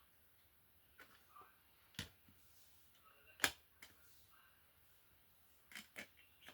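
Plastic CD case being handled: a handful of scattered sharp clicks and taps, the loudest about three and a half seconds in.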